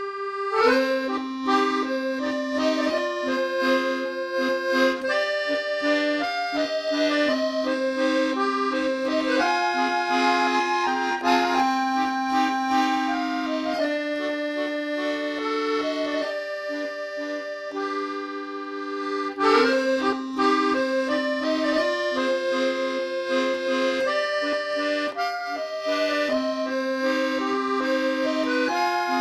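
Background music played on an accordion: a melody over held lower notes, thinning out briefly in the middle.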